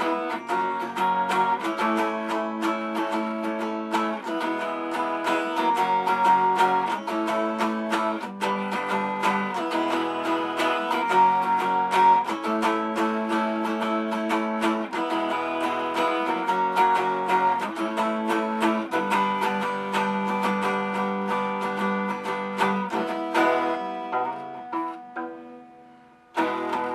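Instrumental intro to a song led by a strummed guitar, keeping an even rhythm of chords. It fades out shortly before the end.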